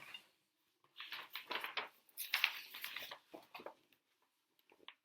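Paper rustling and handling as the pages of a large picture book are turned and opened out. It comes in several short, faint bursts over about three seconds, then stops.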